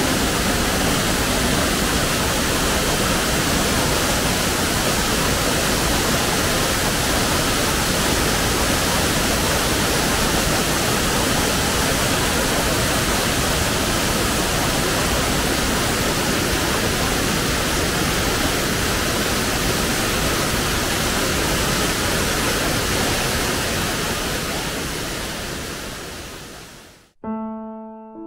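Waterfall pouring into a rocky gorge: a steady, loud rush of falling water. It fades out near the end, and piano music starts.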